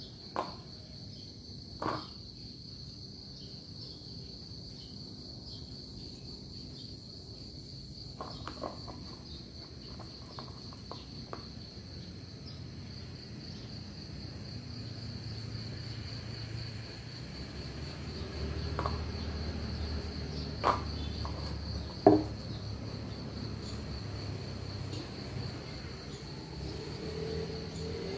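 Steady high-pitched insect trill throughout. Over it come small clicks and a few sharp knocks of a knife and lemon being handled on a wooden table, the loudest about three-quarters of the way through.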